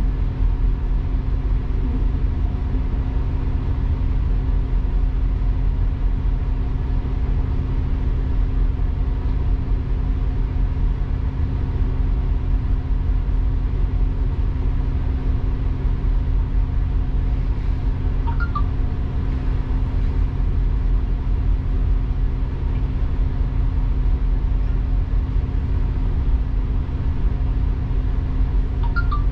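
Steady engine and road rumble heard inside the upper deck of a KMB double-decker bus on the move, with a constant low hum. There are brief high squeaks about two-thirds of the way through and again near the end.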